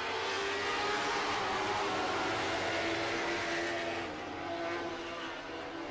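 A pack of Lightning Sprint cars, small winged open-wheel race cars, running together with several engine notes overlapping.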